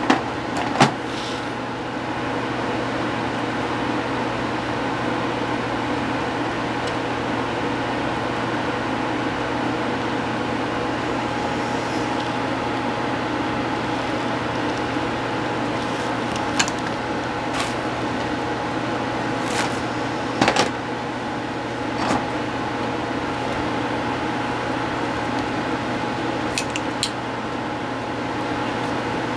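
Steady electric hum of a running room appliance, with a few short, light clicks scattered through it.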